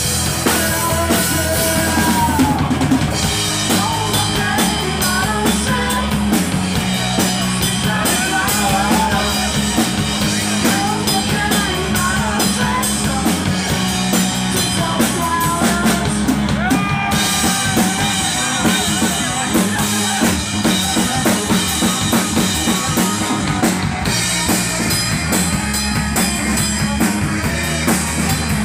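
Rock band playing live, with a drum kit and cymbals keeping a steady beat under the other instruments. The cymbal wash drops out briefly a few times.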